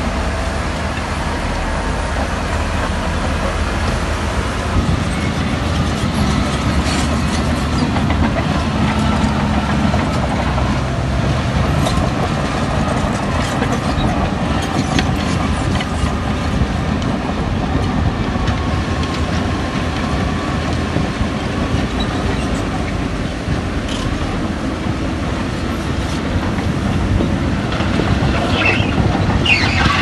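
Heavy diesel construction machinery running steadily, with scattered sharp knocks and a brief high squeal near the end.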